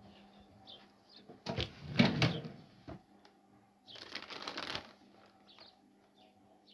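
Rustling and knocking from a phone being handled and moved about. There are two louder bursts of scraping noise, one about a second and a half in with a sharp knock near two seconds, and a hissier one at about four seconds.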